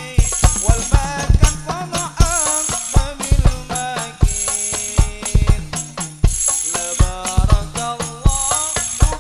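Hadroh rebana ensemble playing: frame drums beat a fast, busy rhythm with tambourine-like jingles ringing in recurring stretches, under a wavering melody line.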